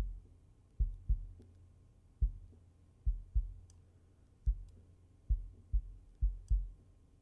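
Kick drum recorded through a homemade sub-kick microphone, soloed and played back through a steep low-pass EQ, so only deep, dull thumps remain with the high end cut away. The hits come in an uneven beat, often in quick pairs, about eleven in all.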